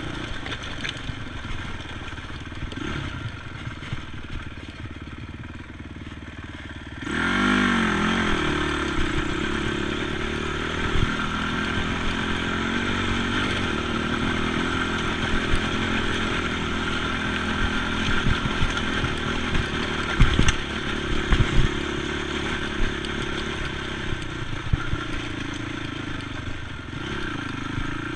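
ATV engine running at low revs, then revving up about seven seconds in and staying on the throttle, with a few sharp knocks and clatters along the way.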